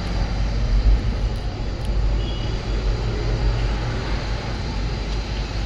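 Steady low rumble of a running motor vehicle with road or wind noise, continuous and without a change in pitch.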